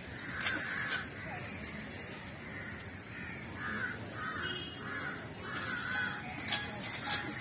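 Crows cawing repeatedly, with a run of short caws about halfway through. A few sharp crackles stand out among the calls.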